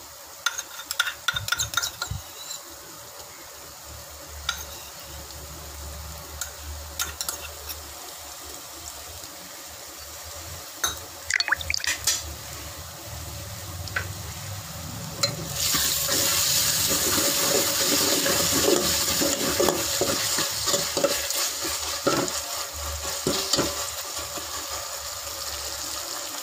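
Onions, leeks and coriander frying in oil in a metal pot with ginger-garlic paste. A spoon clicks against the pot at first, then about halfway through a much louder sizzle rises as the paste is stirred into the hot oil, with crackling.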